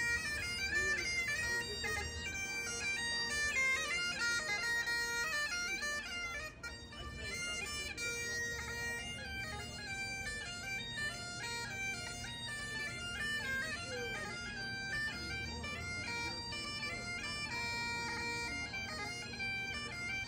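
Bagpipe music: a quick melody stepping between notes over steady drones, continuous throughout.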